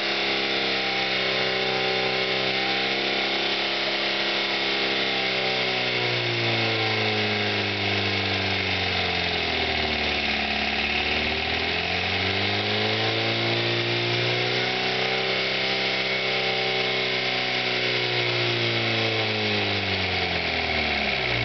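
A Ford Orion's engine, run with its coolant drained, screaming at high revs. The note sags and winds back up around the middle, then drops away and stops at the very end as the overheated engine seizes.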